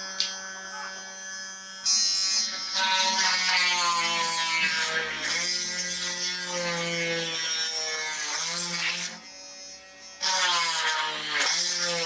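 Homemade drill press's 775 DC motor running with a buzzing whine. It gets louder about two seconds in, its pitch sags and recovers several times, and it drops back briefly near the last few seconds before coming up loud again.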